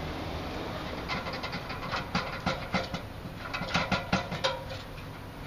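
Work boots clanking on the rungs of an aluminium extension ladder as a man climbs it: irregular metallic knocks and taps in clusters, starting about a second in.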